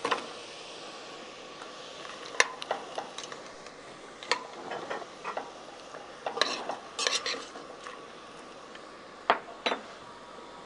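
Metal spoon stirring seafood and vegetables in a stainless steel saucepan, clinking and scraping against the pot every second or two, with a cluster of clinks about two-thirds of the way through. A faint steady hiss runs underneath.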